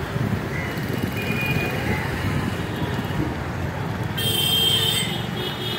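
Street traffic noise, with a vehicle horn sounding for about a second and a half near the end.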